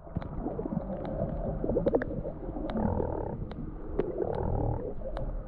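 Muffled underwater sound picked up by a submerged camera: a low rumble and gurgling, with scattered sharp clicks.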